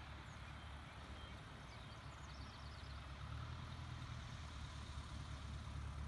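Distant engine drone of a Cub bush plane on approach, a steady low hum growing slightly louder as the plane comes nearer about halfway through.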